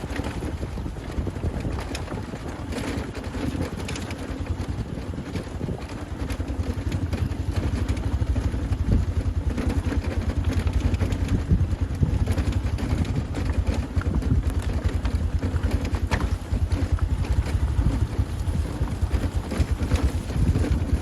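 Motorcycle engine running while riding a rough dirt road, with wind noise on the microphone and many short knocks and rattles; the engine grows louder about seven seconds in.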